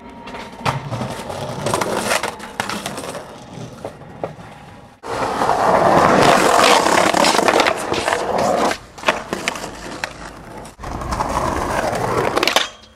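Skateboard wheels rolling over rough concrete pavement, with sharp clacks of the board hitting the ground. The sound changes abruptly twice as one clip cuts to the next, and the loudest rolling is about five to eight seconds in.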